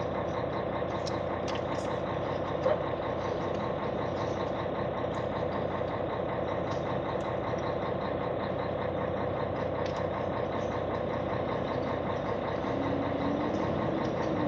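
Truck's diesel engine idling steadily, heard from inside the cab, with a brief click about three seconds in.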